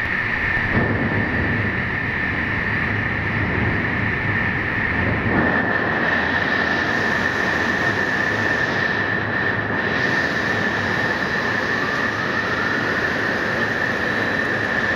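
Extrusion lamination line for woven fabric running: a steady machine din of rollers and drives, with a continuous high-pitched whine over it.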